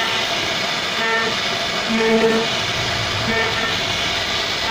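CNC router spindle with a small carving bit cutting into solid wood, a steady high-pitched cutting noise. Short humming tones come and go about once a second as the cutter moves through the pattern.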